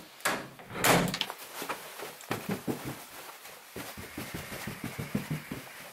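Footsteps and handheld-camera handling noise indoors: a string of soft, irregular knocks and thuds, as of someone moving about at the top of a carpeted stairwell.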